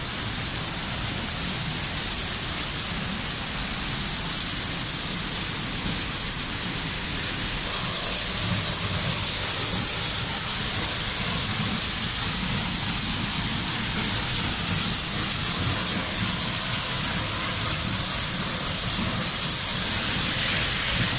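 A waterfall's steady rush of falling water, heard close beside the fall. It steps up suddenly in loudness about a third of the way in and holds there.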